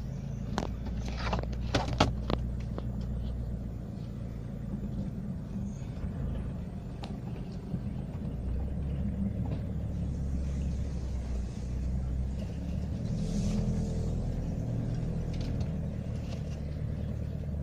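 Off-road vehicle driving down a rough track: a steady low engine and drivetrain rumble, with sharp knocks and rattles from the bodywork in the first couple of seconds.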